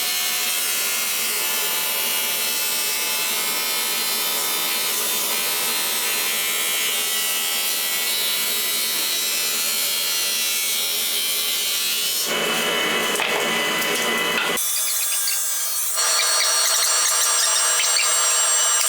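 A hand or power tool working wood, making a steady scraping, rubbing noise. The sound changes abruptly about twelve seconds in, and again around fourteen and sixteen seconds.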